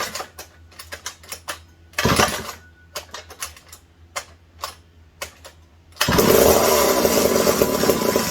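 Two-stroke engine of a McCulloch 740 chainsaw being pull-started: two short starter-cord pulls with small clicks between. About six seconds in the engine catches and runs loudly. The owner puts the saw's uneven starting and running down to carburettor problems.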